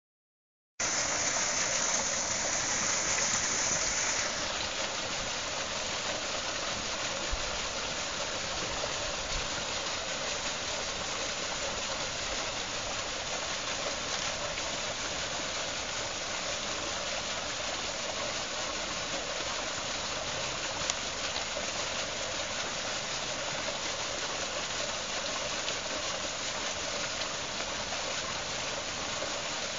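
Water jetting from a hose pipe onto the buckets of a small homemade water wheel as it spins, a steady rushing splash. It starts abruptly about a second in, is louder and hissier for the first few seconds, then settles to an even level.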